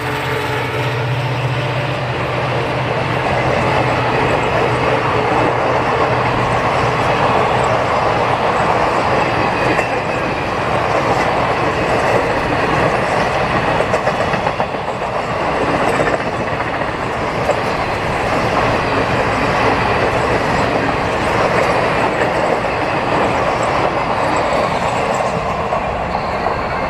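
Indian Railways express train passing close by at speed: a loud, steady rush of wheels on rail that carries on without a break.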